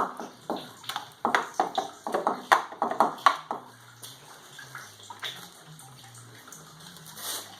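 Wet paper-and-sawdust pulp being handled, with a quick run of irregular splashes and slops in the first few seconds, then quieter.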